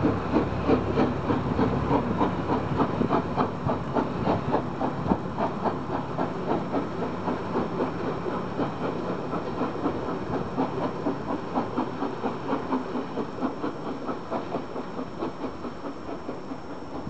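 Steam train pulling away: a steady rhythmic chuffing, about three beats a second, over the rumble of the carriages, fading as it recedes into the distance.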